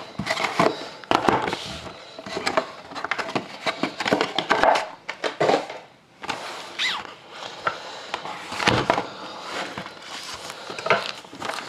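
Cellophane-wrapped cardboard mini boxes of trading cards being handled and set on a table: irregular rustles, taps and scrapes of cardboard and plastic wrap.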